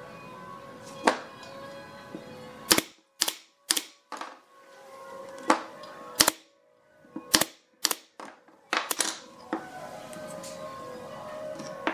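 Pneumatic nail gun firing nails into pine frame joints: about ten sharp snaps at uneven intervals, over background music.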